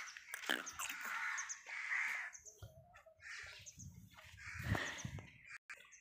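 Water buffalo calf slurping water from a plastic bucket in irregular gulps, with faint bird chirps in the background.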